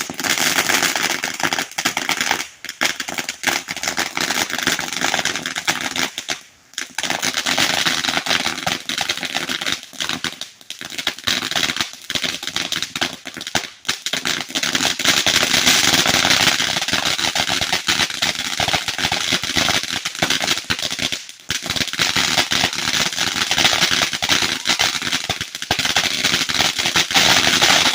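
A consumer firework crackling and popping fast and without letup, a dense stream of sharp little pops like popcorn, dropping off for a moment a few times.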